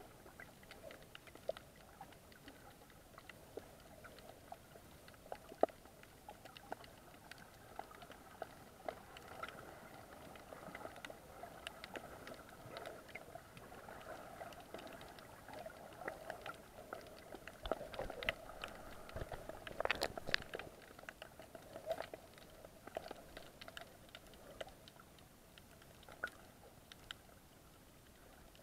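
Muffled underwater sound picked up through an action camera's waterproof housing: a low steady hum with many faint scattered clicks and crackles, a louder cluster of clicks about two-thirds of the way through.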